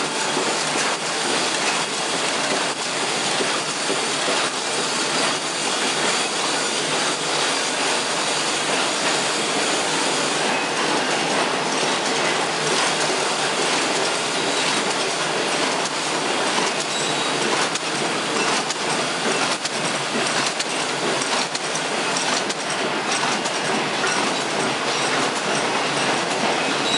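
Sewing machine running steadily at speed, a dense rapid mechanical clatter.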